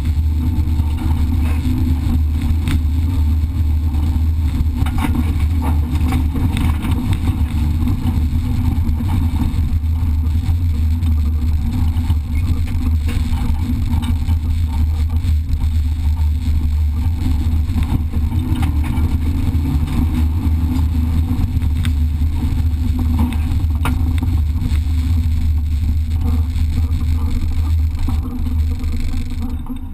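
Car driven along a dirt track, heard through a camera mounted on its bonnet: the engine running under way, buried in a heavy, steady low rumble of wind and road noise, getting quieter near the end.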